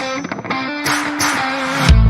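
Background music: electric guitar playing sustained notes over cymbals, with heavy drums and bass coming in near the end.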